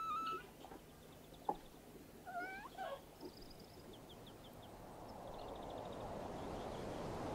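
Cat meowing: a short call at the start, then a longer meow that bends in pitch about two and a half seconds in, with faint high chirps around it. From about five seconds a steady rushing noise grows louder.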